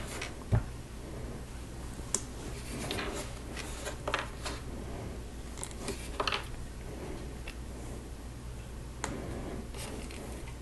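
Small plastic Lego pieces clicking and rustling as little wheels and tires are handled and pressed onto a trailer: a scattering of light clicks, a few close together, over a faint steady hum.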